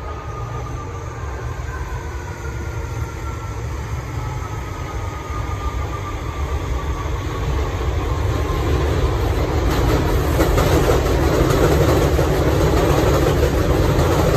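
Elevated subway train on the overhead tracks, its rumble and rattle building to loudest about two-thirds of the way in. A faint whine falls slowly in pitch through the first half.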